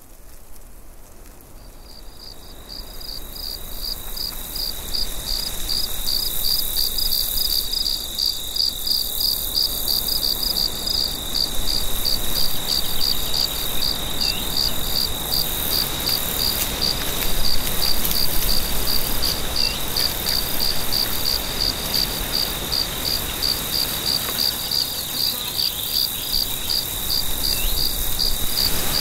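Crickets chirping at night: a fast, even pulse of high chirps over a continuous high trill, fading in over the first few seconds and then holding steady.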